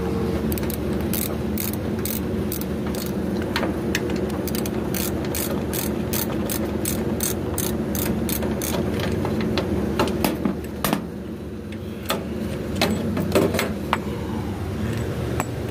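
Socket ratchet clicking steadily, about three clicks a second, as a 9/16 socket turns out the bolt of a worn blower-belt tension pulley. After about ten seconds the clicks thin to a few scattered ones, over a steady low hum.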